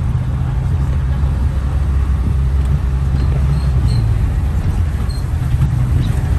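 Vehicle engine running with a steady low drone, heard from on board while moving slowly.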